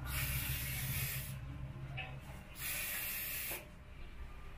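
Aerosol wound spray hissing in two bursts, about a second each, as it is sprayed onto an injured peacock's wound.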